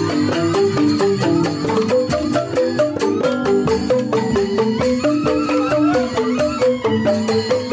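Gamelan joged bumbung ensemble playing: bamboo xylophones (grantang) struck in quick, running melodic patterns with percussion, accompanying the dance.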